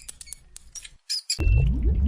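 A small bird chirps in quick, short, high notes. About one and a half seconds in, the sound cuts abruptly to a sheep bleating loudly, its voice wavering up and down.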